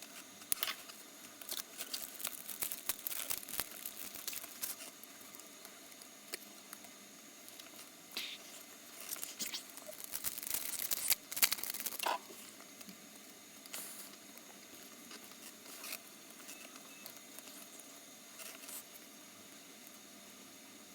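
Trading cards and their packaging being handled: scattered soft taps, rustling and crinkling, densest for a few seconds around the middle, then only occasional light taps.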